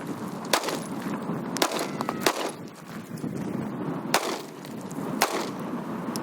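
A 9mm pistol fired about five times at an uneven pace.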